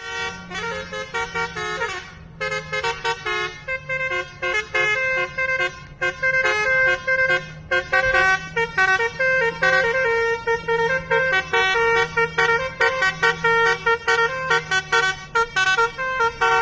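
A bus's multi-tone basuri "telolet" horn playing a tune of quick, repeated notes.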